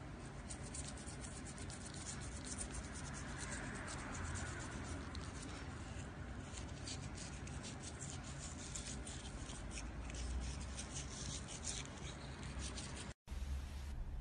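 Toothbrush bristles scrubbing and scraping on a cat's teeth as the cat chews at the brush: rapid scratchy ticks over a low handling rumble, cutting off about 13 seconds in.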